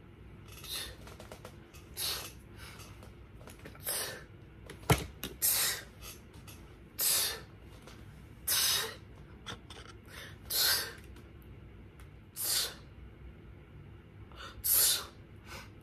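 A person blowing out short, sharp puffs of breath, about eight of them, one every couple of seconds, with a single sharp click about five seconds in.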